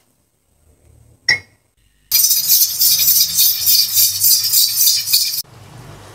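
Pressure cooker on the boil: steam hissing out under the weighted valve, which rattles fast as it jiggles, showing the cooker is up to pressure. It starts suddenly about two seconds in and stops suddenly near the end.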